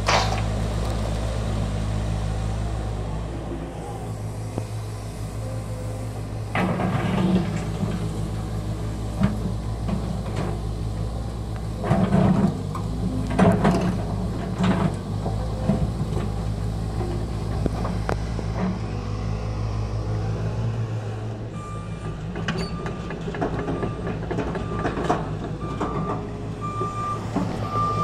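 Volvo EC210 crawler excavator's diesel engine running under hydraulic load while the bucket digs into rock and earth, with loud clattering and scraping of stones several times. About three-quarters of the way through, a warning alarm starts beeping steadily, about once a second.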